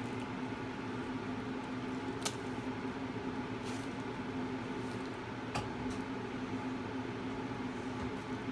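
A steady machine hum, with a couple of sharp clicks about two seconds in and again a little past halfway.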